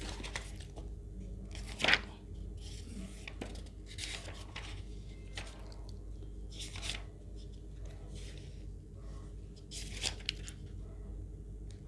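Irregular scratchy strokes of writing, the sharpest about two seconds in, over a faint steady electrical hum.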